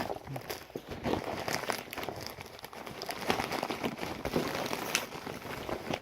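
Packaging being handled: irregular crinkling and rustling with scattered small clicks as a toy box is opened.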